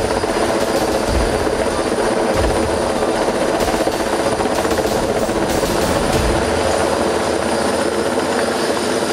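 Heavy-lift helicopter hovering close overhead: a loud, steady drone of rotor and engine, with a thin high whine.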